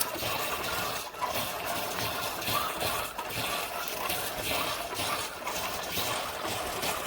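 Amazon Basics Dual Brew single-serve capsule coffee maker pumping hot water through a K-cup into the cup, a steady watery rush. The brew is failing: only plain water is coming through the pod.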